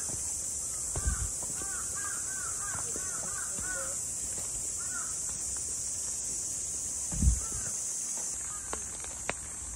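Crows cawing: a quick run of short calls in the first few seconds, then a few single caws later, over a steady high-pitched hiss. Two dull thumps, about a second in and about seven seconds in.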